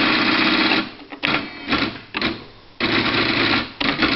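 Quen-Data Executive 80 electronic typewriter's motorised mechanism running in fast buzzing runs. One long whir lasts nearly a second, a few short bursts follow, and another run comes about three seconds in.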